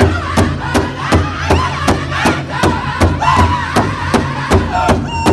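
Powwow drum group singing in high voices in unison while striking a large shared hand drum with steady, even beats, nearly three a second.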